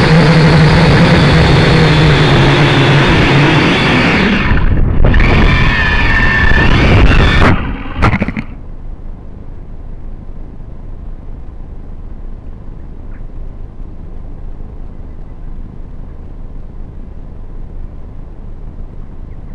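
Camera drone's motors and propellers buzzing loudly in flight, dropping away briefly about five seconds in, then cutting out with a couple of knocks around eight seconds in as the drone comes down in grass. Afterwards only a steady low rushing noise remains.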